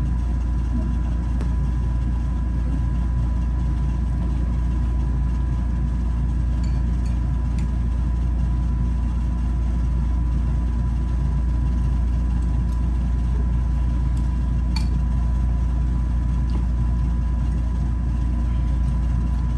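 Steady low machine hum with a thin constant tone above it, unchanging throughout, and a few faint clicks.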